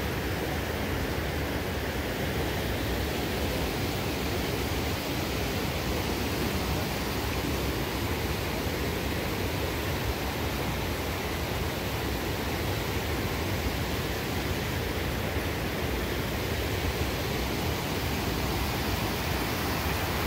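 Water running steadily over a small spillway between fish-farm tanks: a constant, even rush.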